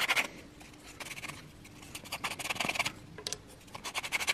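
Small wooden wedges being hand-sanded with a flat abrasive pad, to take off their sharp edges. Quick, short rasping strokes come in runs, with brief pauses.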